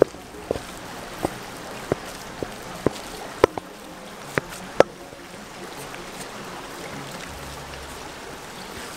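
Wooden spoon knocking against a stainless steel mixing bowl while folding butter into mashed potatoes: about ten light knocks over the first five seconds, then only a steady background hiss.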